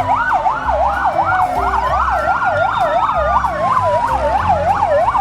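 Fire-rescue vehicle siren: a fast yelp of about four sweeps a second, layered over a slower wail that falls, rises and falls again.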